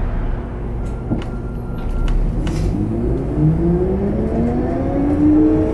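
Isuzu Erga Hybrid city bus's hybrid diesel drivetrain heard from inside the cabin, running steadily and then, about halfway through, pulling away with a whine that rises in pitch as the bus gathers speed.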